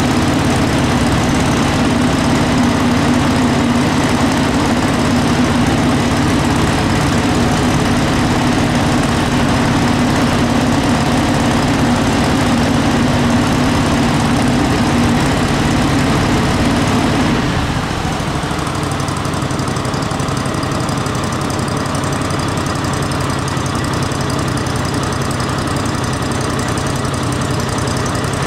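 Small gasoline engine on a homemade inflatable craft running steadily at a fast idle. About seventeen seconds in the sound drops and settles to a quieter, lower running, as if throttled back.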